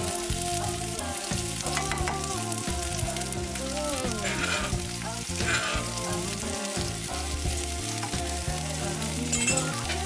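Crushed red chilies sizzling in hot oil in a nonstick frying pan, flaring up briefly twice near the middle.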